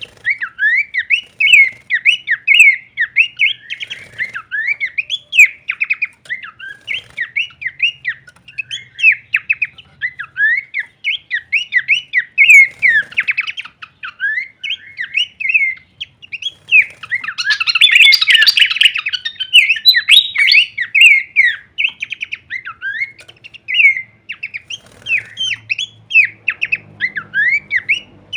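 Pelanduk semak babbler singing a rapid, continuous run of short whistled notes that sweep up and down. About two-thirds of the way through there is a denser, harsher stretch of chattering.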